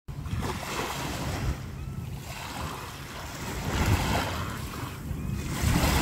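Small waves breaking and washing up on a sandy shore, surging a few times, with wind rumbling on the microphone.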